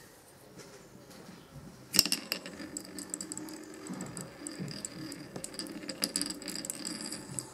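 A small wooden spinning top on a turned wooden game board: a sharp click about two seconds in, then the steady whirr of the top spinning on the wood, with rapid clicks and rattles as it knocks small wooden balls about.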